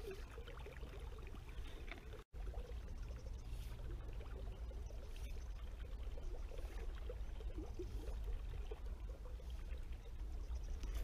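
Steady flowing river water with a low rumble underneath; the sound cuts out for an instant about two seconds in.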